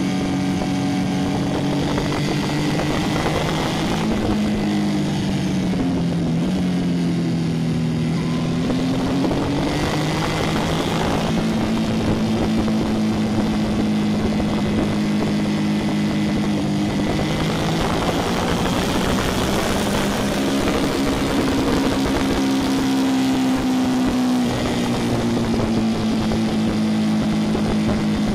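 Motorcycle engine running under way at cruising speed, its pitch falling and rising again a few times as the throttle changes, with a steady rush of wind and road noise.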